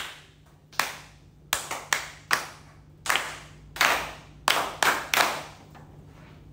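About ten single hand claps at an uneven rhythm, each sharp and ringing briefly off the hard walls, stopping about a second before the end.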